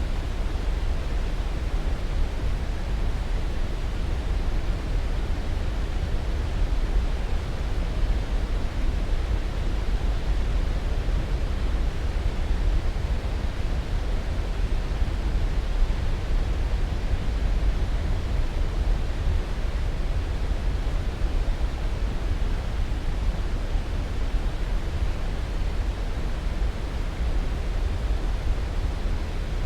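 Steady sleep-aid noise: an even, unbroken rushing hiss, heaviest in the low end and thinning toward the highs, with no change in level.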